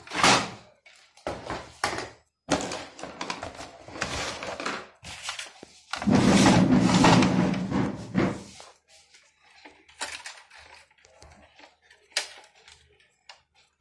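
Handling noises of a printer being worked on: a run of short knocks and thuds, a louder sustained sound of about two and a half seconds in the middle, then faint clicks as the formatter board and its head cable are handled.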